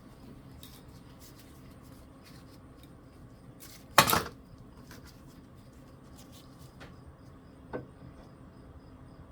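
Small tools and parts being handled on a workbench: light clicks and taps, with one sharp clank about four seconds in and a smaller knock near the end.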